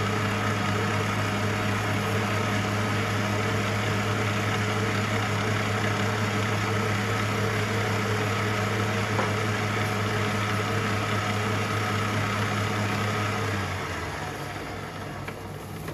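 Electric stand mixer running steadily with its wire whisk beating batter in a steel bowl, a steady motor hum and whirr that winds down near the end.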